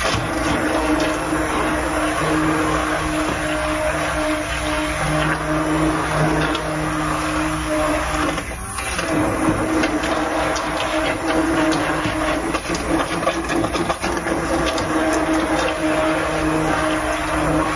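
Handheld immersion blender running in a pot of vegetable soup, puréeing the last few chunks. The motor hums steadily, cuts out briefly about halfway through, then runs on.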